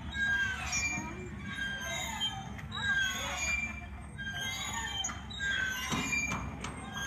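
Playground swing creaking and squeaking at its chain hangers in short high squeals, again and again as it swings back and forth, with children's voices.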